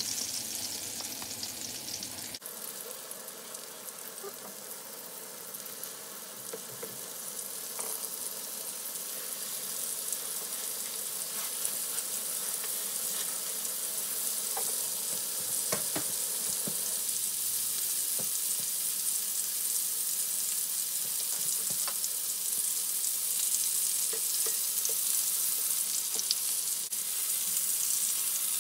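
Raw ground-pork hamburger patties frying in hot fat in a pan: a steady sizzle that gradually gets louder as more patties go in. A few light taps sound against the pan along the way.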